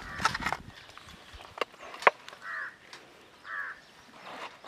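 A crow cawing twice, about halfway through and again a second later. Around the caws are sharp wet slaps and rustles from hands handling marinated whole chickens on a banana leaf; the loudest slap comes about two seconds in.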